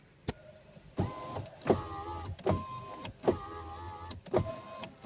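Power window motor and newly replaced window regulator assembly in a Škoda Kylaq's front left door, driving the glass in a quick series of short runs, each starting with a click. The glass moves with no abnormal noise, the sign that the regulator replacement has cured the noise.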